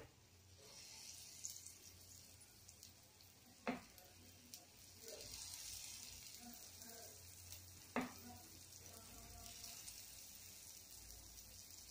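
Faint sizzling of batter frying in hot oil in the cavities of a paniyaram pan, growing as more batter goes in. Two sharp taps of a steel spoon on the pan, about four seconds apart.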